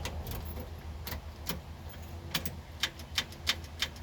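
Ignition keys on their ring clicking and jingling as the key is worked in a new ignition lock cylinder on a 1979 Ford F100. The sharp clicks come a few at a time, then about three a second from about two seconds in. The starter does not crank: the truck is dead because the new switch's plug was not connected.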